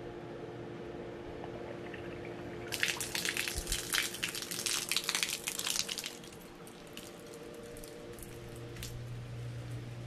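Outdoor shower running briefly, its water splashing onto a stone-and-pebble floor for about three seconds before it is shut off, then scattered drips.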